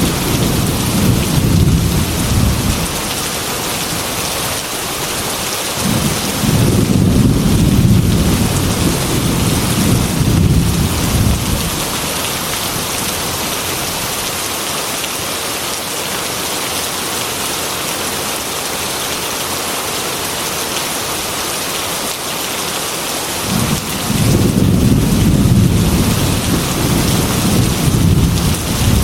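Heavy rain pelting steadily against a glass window, with thunder rolling in three long, deep rumbles: at the start, again about six seconds in, and near the end.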